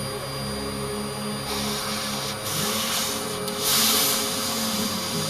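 Vacuum cleaner running, used to suck dust out of a laptop's cooling fan. Its rushing hiss swells in steps and is loudest for a moment about four seconds in.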